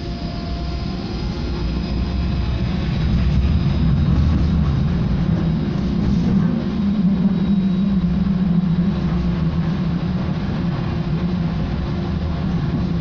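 Interior running noise of a Vario LF2 plus low-floor tram: a heavy low rumble of wheels on rails with a steady electric hum over it, growing louder over the first few seconds as the tram gathers speed, then holding steady.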